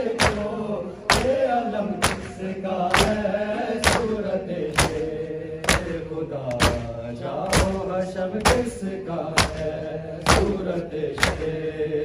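Matam: a crowd of men beating their bare chests in unison, sharp open-hand slaps a little under once a second, over a group of male voices chanting a noha.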